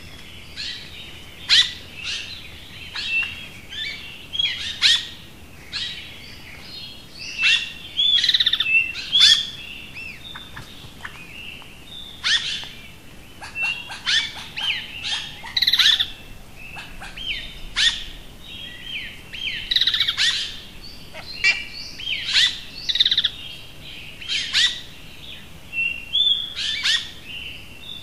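Songbirds chirping and singing in a forest dawn chorus: short whistled notes, chirps and quick downward-sliding calls, one after another about every second.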